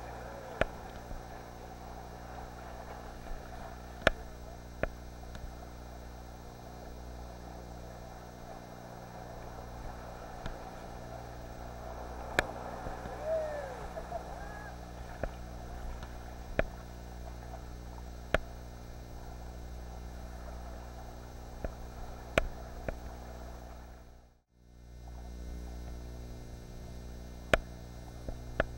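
Ocean swell surging and washing against sea-cliff rocks, heard as an even wash under a steady electrical hum, with scattered sharp clicks and a couple of faint short glides near the middle. The sound cuts out briefly near the end.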